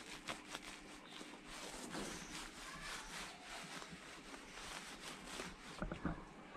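Hands scrubbing shampoo lather into a wet golden retriever's coat: faint wet rubbing and squishing, with a run of soft, irregular clicks.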